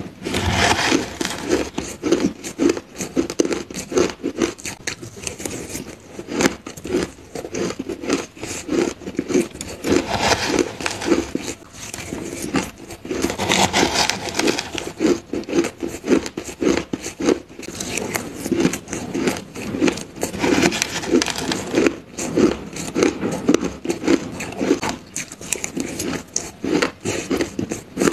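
Crushed ice being chewed close to the microphone: a dense, irregular run of crisp crunches, with a few louder crunching bursts along the way.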